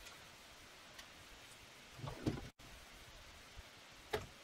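Faint handling noises from hands smoothing a heat transfer vinyl sheet with its plastic carrier onto a T-shirt: a muffled scuffing knock about two seconds in and a sharp click near the end.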